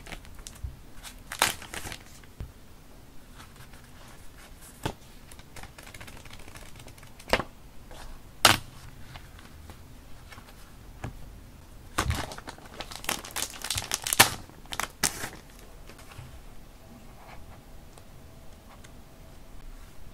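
Paper rustling and crinkling as hands flip through and flex small tear-off paper ticket pads. Sharp crackles come every few seconds, then crowd together a little past the middle.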